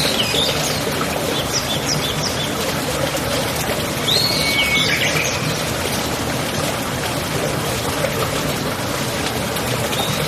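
Birds calling over a steady rush of running water: arching whistled calls at the start and about four seconds in, with short chirps between.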